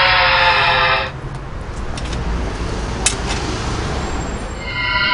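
A buzzy pitched tone sliding slowly downward stops abruptly about a second in, leaving steady street traffic noise with a low rumble and a few light clicks. The same sliding tone comes back near the end.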